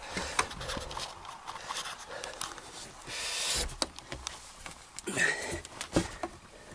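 A man panting hard as he crawls through a cramped attic, with scattered knocks and scrapes from his movements.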